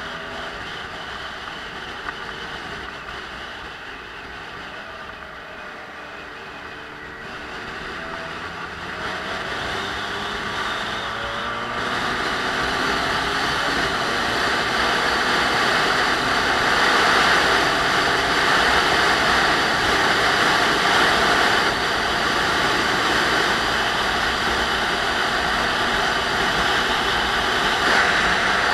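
Wind rushing over the microphone of a camera on a moving motorcycle, with the engine's note faintly rising in pitch underneath as the bike gathers speed. The wind noise builds over the first dozen seconds and then stays loud and steady.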